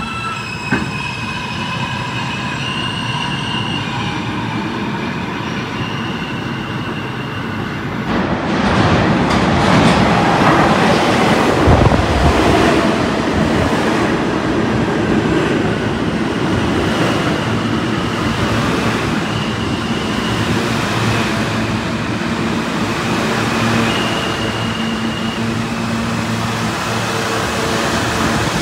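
R160A subway train standing at the platform with a steady hum, then pulling out about eight seconds in. The rushing, rumbling run of the cars passing close by gets louder and stays up, with brief high squeals now and then.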